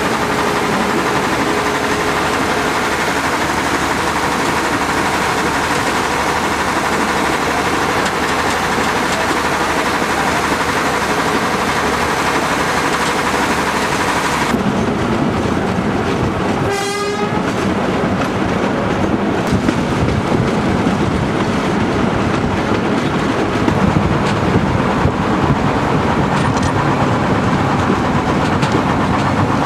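Fiat Littorina double-engined diesel railcar running along the line, heard from inside the cab as a loud, steady mix of engine and wheel noise. The sound changes suddenly about halfway through, then the railcar's horn gives a short blast.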